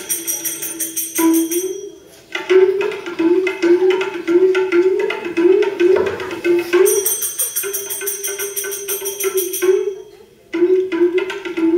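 Live Rajasthani folk music accompanying a puppet dance: small hand cymbals (jhanj) jingle in a fast, even rhythm near the start and again from about 7 to 10 seconds in, over a held, wavering melody. The music drops out briefly about 2 seconds in and again just after 10 seconds.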